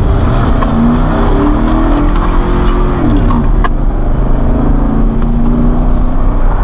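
Pickup truck engine accelerating hard, heard from inside the cab with road and tyre noise on a dirt road. Its pitch climbs, drops about three seconds in as the transmission shifts up, then climbs again.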